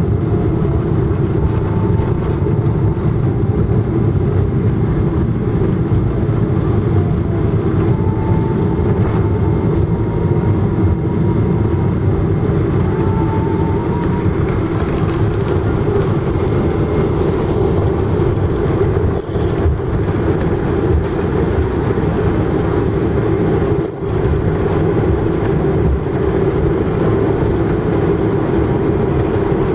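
Boeing 777-200 airliner cabin during the landing roll: a loud, steady rumble of the engines and the wheels on the runway as the aircraft slows down.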